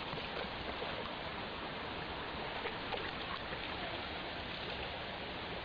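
Creek water running steadily over rocks, an even rushing.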